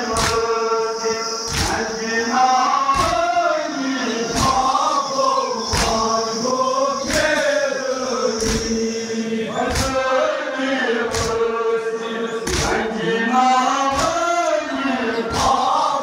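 A crowd of men chanting a Kashmiri noha, a Shia lament for Muharram and Safar, in unison. A loud, regular thud of matam (hands beating on chests, all together) lands about once a second and keeps the beat.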